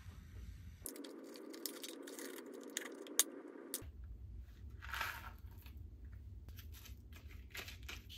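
Foil lid being peeled back from a plastic Chobani Flip yogurt cup, crinkling with many small clicks and one sharp click. After that, a metal spoon scraping and clicking in the cup.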